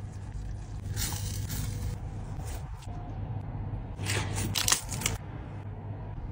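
Rustling and crackling as flatbread and saucy food are handled, loudest about a second in and again around four to five seconds in, over a steady low hum.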